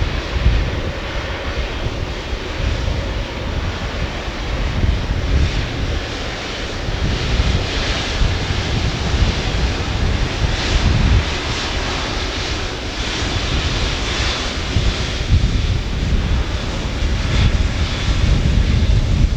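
Boeing 777-300ER's GE90 jet engines running with a loud, continuous roar and a heavy low rumble.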